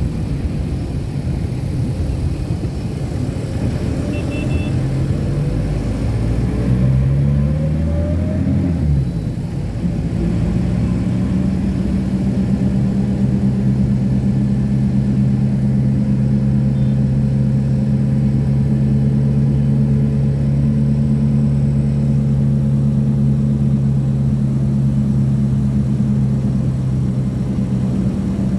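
Bus engine heard from inside the cabin. It revs up with rising pitch a few seconds in, eases off briefly, then runs steadily at cruising speed with road noise.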